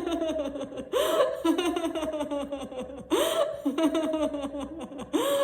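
A woman doing deliberate laughter-yoga laughing: three times a sharp rising 'he!' followed by a quick run of 'ha ha ha', about two seconds apart.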